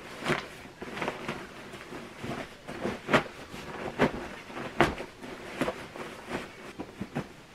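Cotton bedding rustling and swishing in a series of short irregular strokes as a pillow is pushed into its pillowcase and the fabric is smoothed by hand. The loudest strokes come about three seconds in and just before five seconds in.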